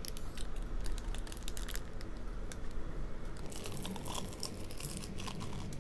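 Close-up eating sounds: crisp crunching bites and chewing of breaded fried food, mixed with crackling of paper food packaging, thickest from about three and a half seconds in.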